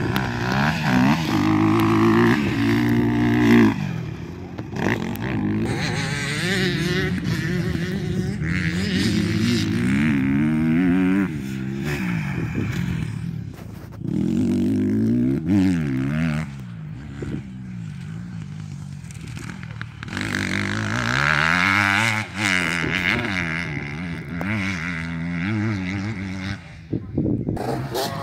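Honda CRF150R dirt bike's four-stroke single-cylinder engine being ridden hard around a track: the pitch climbs and drops again and again as it revs through the gears and backs off, and it grows fainter at times as the bike moves away.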